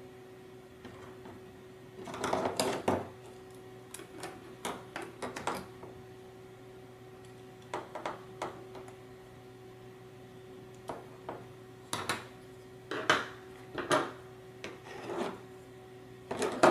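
Small Phillips screwdriver tightening M2 screws through a plastic panel into their nuts: scattered light scrapes and clicks, with knocks of hard plastic parts being handled, over a faint steady hum.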